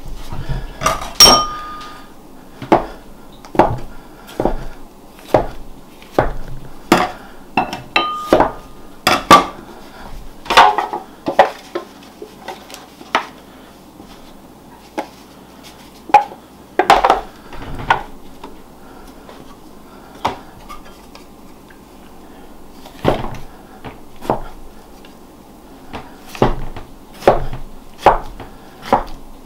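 A knife chopping through a rolled log of apple-filled dough, the blade knocking on a wooden board in irregular strokes, mixed with taps and clatter from a foil loaf pan as the pieces go in. A few knocks ring briefly, near the start and about eight seconds in.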